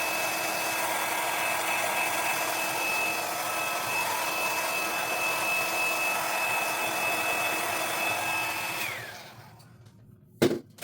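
Small hair dryer blowing steadily with a high whine, then switched off about nine seconds in, its whine dropping as it winds down. A sharp knock follows near the end.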